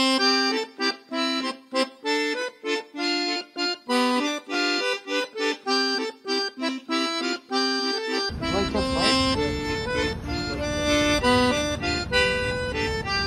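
Instrumental background music: a bouncy melody of short, separate notes. About two-thirds of the way through, a steady low rumble of background noise comes in under the music.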